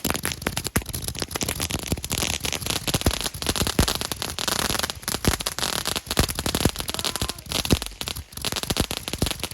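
A string of about 3000 firecrackers going off in one long, unbroken run of rapid cracks and pops.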